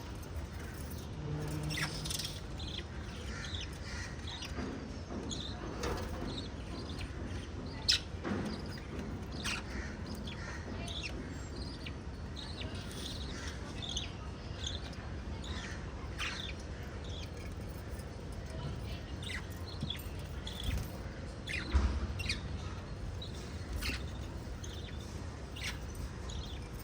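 Small pet parrots chirping: many short, scattered high chirps, with a louder sharp one about eight seconds in and another near twenty-two seconds, over a steady low hum.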